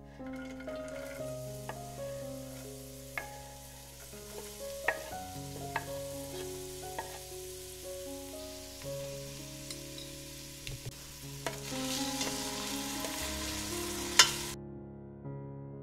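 Diced onion, celery and carrot sizzling in hot olive oil in a stainless steel pot, with a spatula clinking against the pot as they are stirred; the sizzle grows louder about two-thirds through, and the loudest clink comes near the end, just before the sizzle cuts off suddenly. Soft piano music plays underneath.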